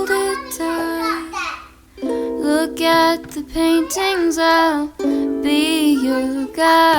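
Background music: a song with a sung voice over a plucked string instrument.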